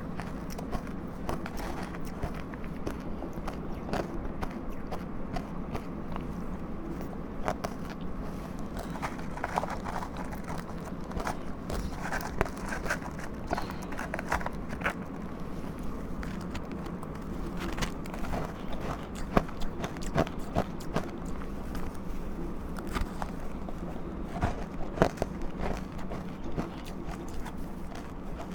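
Close-up biting and chewing of powdery ice dusted with matcha powder: an irregular run of crisp crunches, thickest about a third of the way in and again past the middle.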